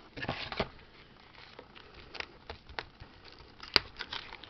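A board-game box and its cardboard mailer being handled. A burst of rustling and scraping at the start, then scattered light knocks and clicks, the sharpest a single click about three-quarters of the way through.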